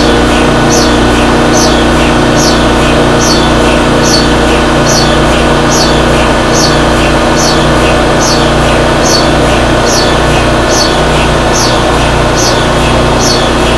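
HTS DC induction heating machine running, its large electric motor spinning the aluminium billet through the superconducting magnet's field: a loud, steady machine hum with several held tones. Over it, a short high chirp falling in pitch repeats about every two-thirds of a second.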